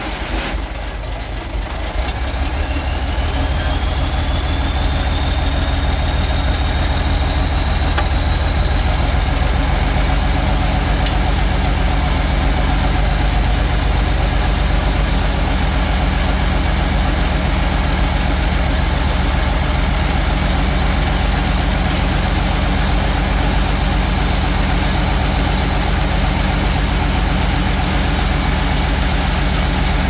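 Engine of a heavy road-construction machine running steadily, with a high whine that rises over the first few seconds and then holds level.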